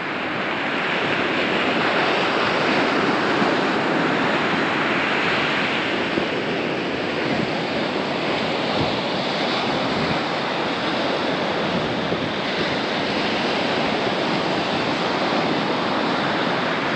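Surf breaking on a sandy beach: a steady, even rushing of waves, with wind blowing over the microphone.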